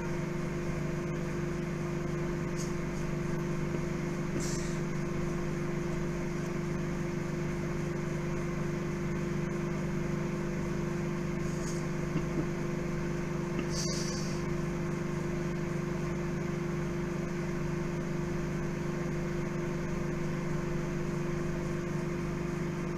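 Microwave oven running with a steady low buzzing hum, which the uploader hears as farting. A few brief high hisses cut in over it.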